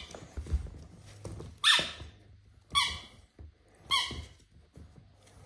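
Squeaky dog toy squeezed three times, about a second apart, each a short high squeak.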